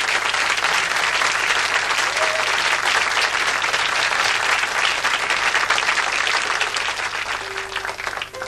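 A studio audience applauding steadily. The clapping thins out near the end as a few sustained piano notes come in.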